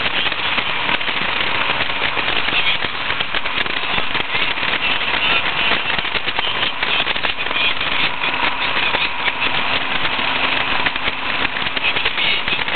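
Westfield SE open-top sports car driving along the road: steady engine note mixed with rushing wind and road noise, heard from the open cockpit.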